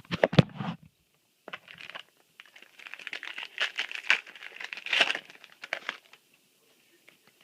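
Trading-card booster pack wrapper crinkling and tearing as a new Yu-Gi-Oh! Lord of the Tachyon Galaxy pack is opened, after a few sharp handling knocks at the start.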